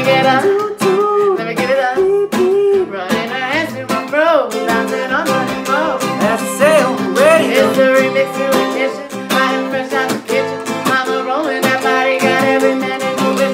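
Twelve-string acoustic guitar strummed in a steady rhythm, with a voice singing a wavering melody over the chords.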